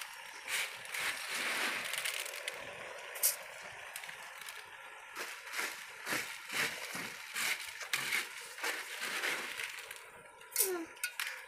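Hands scraping uncooked rice grains across a tray and tipping them into a pot of liquid: an irregular gritty rustle with many small clicks of grain.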